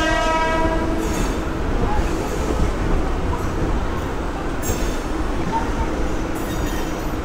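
Suburban electric local train running, with a steady rumble of wheels and track heard from the open doorway. A train horn is sounding at the start, one held tone that stops about a second in. A few brief higher rattles come over the points later.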